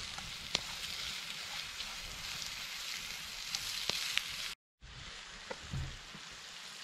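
Sausage sizzling in a hot skillet over a campfire: a steady frying hiss with scattered sharp pops. The sound cuts out for a moment about two-thirds through, then goes on a little quieter.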